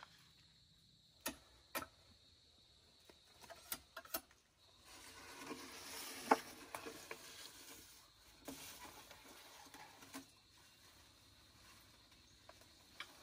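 A long bamboo pole dragged along a trail through dry bamboo-leaf litter, rustling and scraping with scattered sharp knocks and snaps; the rustling swells for a few seconds in the middle, with one loud snap about six seconds in.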